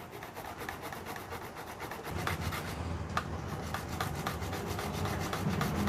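Ripe tomato being grated by hand on a flat stainless-steel grater: a quick run of wet rasping strokes, several a second. A low hum comes in about two seconds in.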